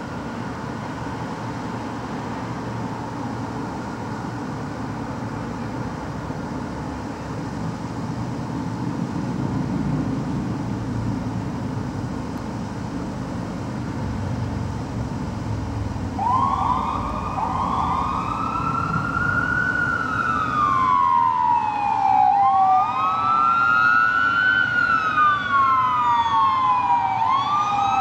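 Fire apparatus engines rumble steadily as the trucks pull out. About sixteen seconds in, electronic sirens start up in wail mode, each cycle rising quickly, then falling slowly. Two siren sweeps overlap and grow louder toward the end.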